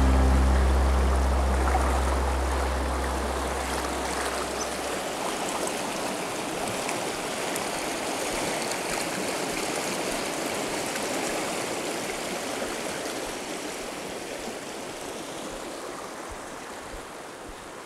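Steady rush of the Goat River running over a rocky bed, slowly fading. A deep low note sounds at the start and dies away about five seconds in.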